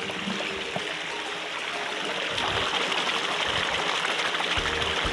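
Steady rush of running water, with a hand swishing through a bucket of muddy water to wash the toys. It grows a little louder about halfway through.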